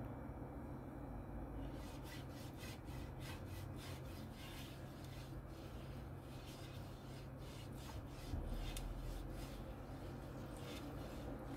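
Silicone pastry brush stroked back and forth over a non-stick frying pan, spreading oil: a run of soft rubbing swishes, a few a second, starting about two seconds in.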